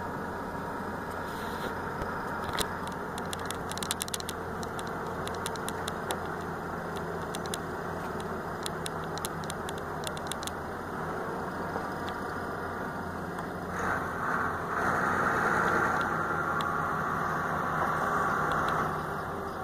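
Truck engine running steadily, with scattered light clicks in the first half. It gets louder for about five seconds near the end.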